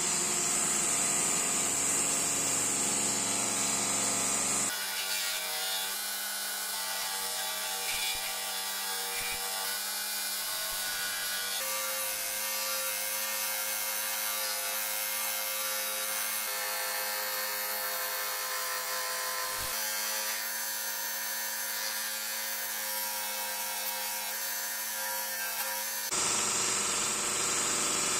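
Electric bench belt sander running steadily while a wooden handle is pressed against its narrow abrasive belt and sanded to shape.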